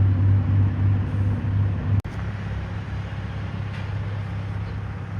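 A vehicle engine running steadily with a low hum that cuts off abruptly about two seconds in, leaving a quieter steady rumble.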